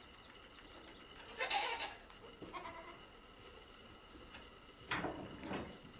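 African pygmy goats bleating: a short bleat about a second and a half in, a fainter call soon after, and another bleat about five seconds in.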